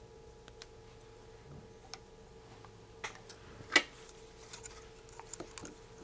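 Scattered small clicks and taps of resistors and hand tools being handled while fitting parts to a kit circuit board, with one sharper click a little past the middle, over a faint steady hum.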